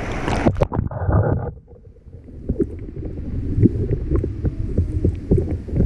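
Rushing of a fast, clear stream that, after a couple of sharp knocks, turns into a muffled low rumble of current with faint ticks as the microphone goes under water.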